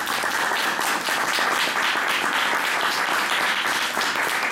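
Audience applauding, a dense steady patter of many hands clapping, at the close of a lecture.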